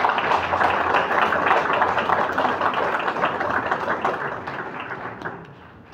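Audience applauding, with many hands clapping at once; the applause fades away near the end.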